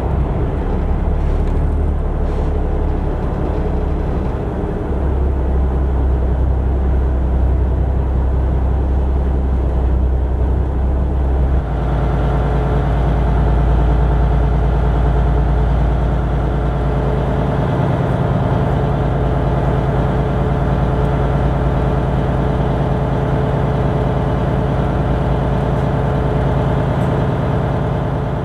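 Boat's marine diesel engine running steadily, its note changing in steps a few times as the engine speed is changed.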